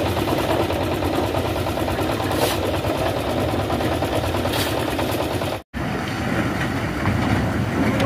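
Steady engine noise from a concrete mixer running. It cuts out suddenly for an instant a little over halfway through, then heavy truck engines carry on.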